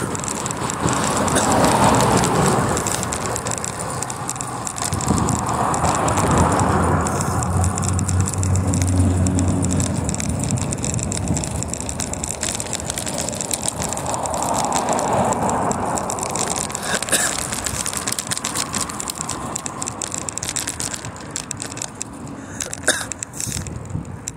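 Riding noise on a bicycle: a continuous rush of rolling and rattling noise with a few slow swells.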